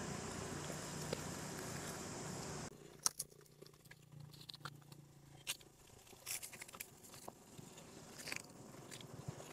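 A steady hum that cuts off abruptly about two and a half seconds in, then scattered light crackles and clicks of dry leaves as a long-tailed macaque moves about on the leaf litter.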